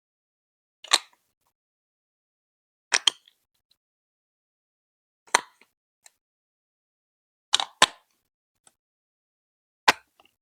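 Plastic Lego Duplo bricks being pressed together one at a time: short sharp clicks about every two seconds, some of them doubled.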